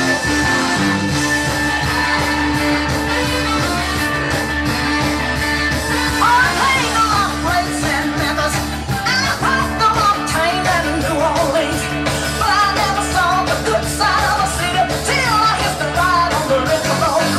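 Loud music with a steady beat, instrumental at first; a singing voice comes in about six seconds in and carries on over it.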